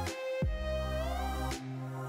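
Background electronic music: a held synth melody over a steady deep bass, with bass hits that drop in pitch twice.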